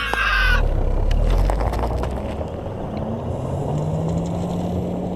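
A car driving off along a gravel road: its engine running under a rough rumble of tyres on gravel.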